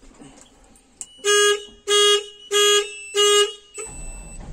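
Don Roque 150 combine harvester's warning beeper sounding four loud beeps at a steady pitch, about one and a half a second. Near the end the combine's engine starts up with a low rumble.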